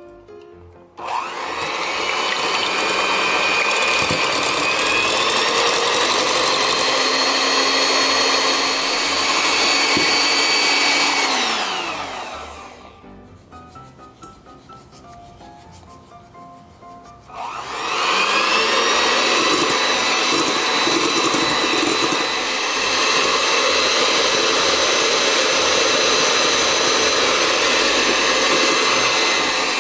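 Electric hand mixer whipping egg whites in a stainless steel bowl. The motor starts about a second in with a rising whine and runs steadily. It winds down and stops around twelve seconds in, then starts again after a pause of about five seconds and runs on.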